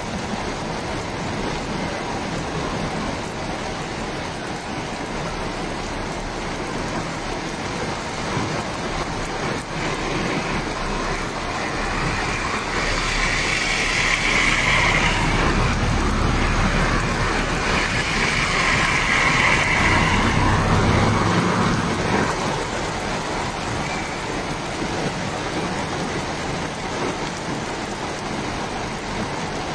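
Steady rain falling, an even hiss. A car passes on the wet road through the middle, louder for several seconds with a low rumble under the rain.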